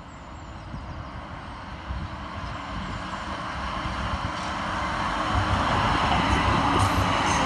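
A Sheffield Supertram tram approaches along street track and passes close by. Its running noise grows steadily louder throughout.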